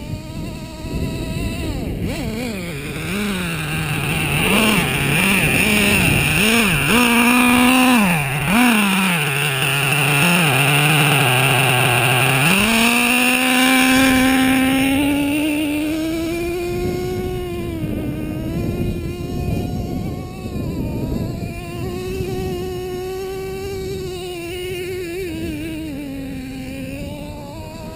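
Small nitro engine of a radio-controlled monster truck revving up and down repeatedly, then held at high revs from about halfway through as the truck runs flat out. Loudest as it passes close by.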